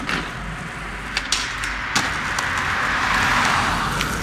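Skateboard rolling on asphalt, with a few sharp clacks of the board about a second in and a rush of wheel noise that swells and fades as the board passes close.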